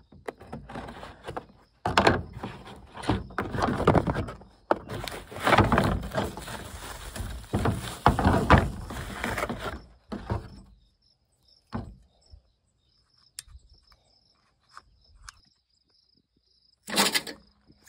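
Cardboard box cut open with scissors and unpacked, then crinkling and rustling bubble wrap as a new lawnmower recoil starter is unwrapped. Scattered clicks and light knocks follow as the part is handled, with a short loud burst near the end.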